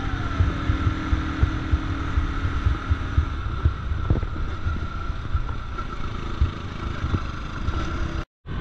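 Wind buffeting the microphone of a moving two-wheeler, a gusty rumble with irregular thumps over a steady engine hum. The sound cuts out for a moment near the end.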